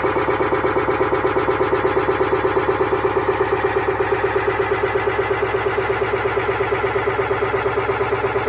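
Whirlpool washing machine in its spin cycle, running with a steady hum and a rapid even pulsing of about eight beats a second. The spin is abnormal.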